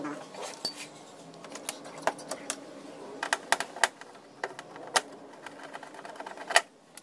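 Screwdriver working the mounting screws of a TV power-supply board on a sheet-metal chassis: irregular clicks and metallic taps, the loudest about six and a half seconds in.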